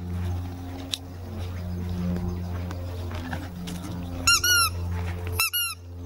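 Dog's squeaky toy squeaking in two quick pairs, short high squeaks about four seconds in and again about a second later.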